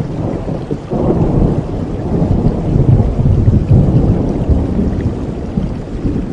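A loud, low rumbling noise that swells about a second in and rolls on unevenly.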